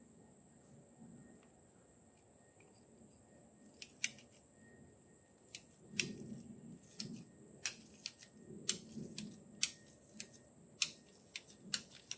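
PVC pipe cutter clicking as it is squeezed through PVC pipe. After about four seconds, sharp clicks come every half second to a second, with dull knocks of the pipe in between.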